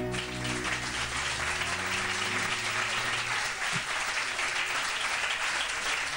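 Audience applauding while the song's final guitar chord rings on and fades away over the first few seconds.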